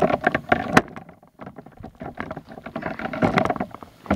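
Handling noise from a camera being picked up and carried: irregular rustling and knocks on the microphone, with a short lull about a second in.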